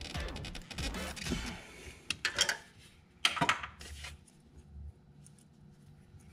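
Background music fading out, then a few sharp metallic clicks and clinks from handling hand tools and wire connectors, about two seconds and three and a half seconds in.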